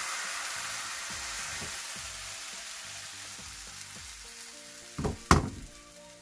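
Thin milk crepe batter sizzling in a hot, oiled nonstick frying pan, the hiss slowly fading. About five seconds in come two sharp knocks as the pan is set back down on the gas burner's grate.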